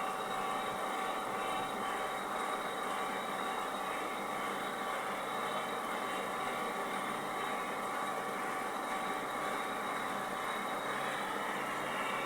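Pyung Hwa milling machine running steadily: a constant mechanical whir with a few steady tones in it.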